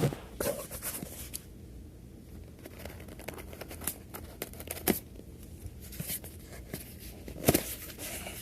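A cardboard subscription box being opened by hand: packaging tearing and crinkling, with scattered light knocks and one sharper knock near the end.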